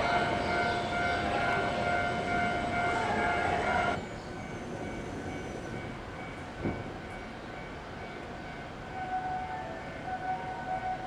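Railway station platform sounds: a steady sound made of several held tones, cut off abruptly about four seconds in. Quieter platform ambience follows, with a single thump, and a few chime-like tones start near the end.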